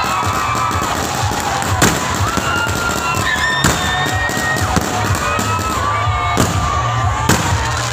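Fireworks going off: several sharp bangs a second or two apart, over music.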